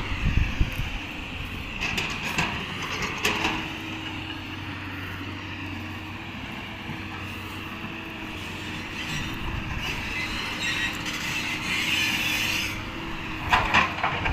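JCB 3DX backhoe loader's diesel engine running steadily while it digs, with metallic clanks and scraping from the bucket and arm about two and three seconds in and again near the end.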